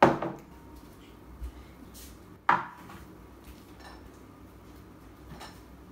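A glass measuring jug and a ceramic ramekin being set down on a hard tabletop: two sharp knocks, one at the start and one about two and a half seconds in, with a few fainter clicks between.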